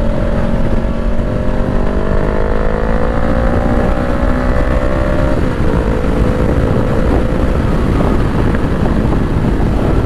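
Honda CBR500R's parallel-twin engine pulling under acceleration, its pitch rising for about five seconds, then dropping at an upshift and holding steady, with wind rush beneath it.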